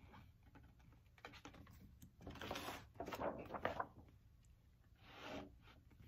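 A page of a large big-format picture book being turned by hand, the paper rustling and flapping about two to four seconds in, then a softer rustle as the page settles.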